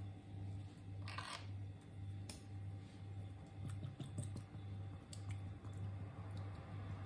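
Scattered light clicks and taps, as of small objects being handled at a kitchen table, over a low hum that pulses about twice a second.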